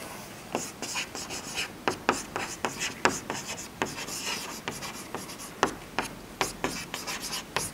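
Chalk writing on a chalkboard: a run of short, scratchy taps and strokes as a word is written out.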